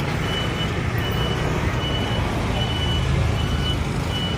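Street traffic rumbling steadily, with a high electronic beep repeating about once a second, like a vehicle's reversing alarm.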